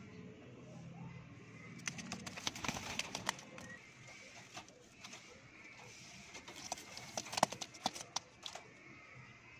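High-flyer pigeons in their loft: soft pigeon sounds with scattered sharp clicks and taps, which come in two busy spells, the first about two seconds in and the second past the middle.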